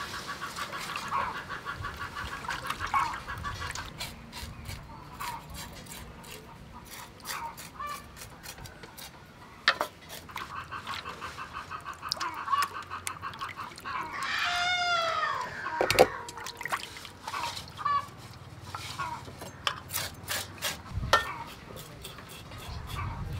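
Hands swishing and handling barracuda pieces in a metal bowl of water, with small splashes and clicks throughout, and a knife cutting into the fish near the end. In the background poultry call, including one long rising-and-falling call a little past halfway, over a fast pulsing chatter.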